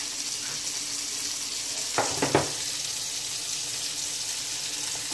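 Flour-coated chicken deep-frying in hot oil in a saucepan: a steady sizzle, with two short louder sounds about two seconds in.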